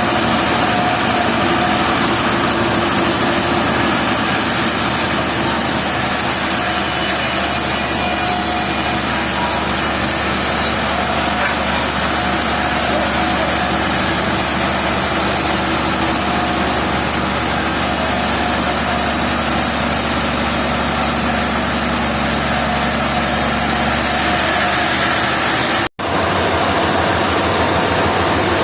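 Sawmill machinery running steadily: a constant engine drone under a hiss of sawing. The sound cuts out for an instant near the end, then resumes.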